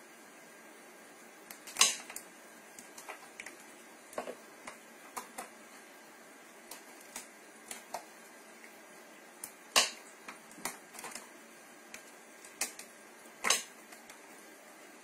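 Irregular sharp taps and clicks as a cat bats at a small toy dangling on a string against a sisal scratching post. The strongest knocks come a little under 2 s in, near 10 s and near 13.5 s.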